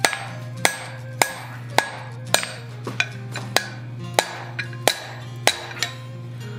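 Hand hammer striking a red-hot steel bar on an anvil in a steady rhythm, roughly one sharp ringing blow every 0.6 seconds, about a dozen in all. The hot tip is being bent over into a hook.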